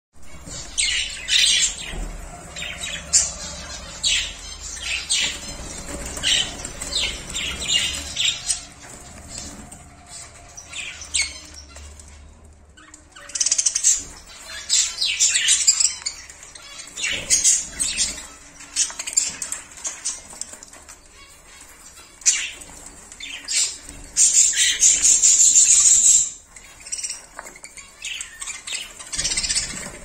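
A group of budgerigars chattering in a cage: a stream of short, high chirps and squawks with brief lulls, and a dense burst of chatter near the end.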